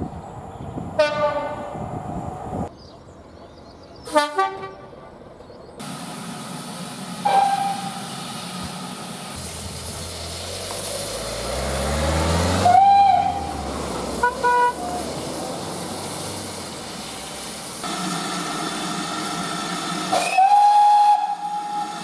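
Train warning signals in turn: two short blasts of a diesel freight locomotive's horn in the first few seconds, then a steam locomotive's whistle sounded several times over hissing steam: a brief toot, a loud longer blast followed by short pips, and a long steady blast near the end.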